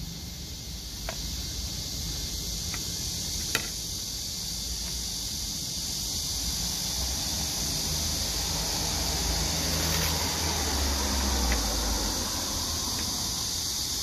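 Steady, unbroken buzzing chorus of cicadas, black cicadas (말매미) among them. A low rumble of a vehicle on the road swells and fades about two-thirds of the way through, and there is a sharp click a few seconds in.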